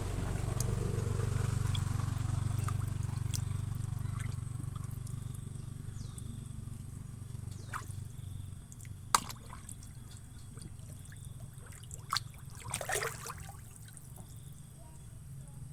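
Water dripping, with a few small sharp splashes about halfway through and near the end, over a low rumble that fades away in the first half.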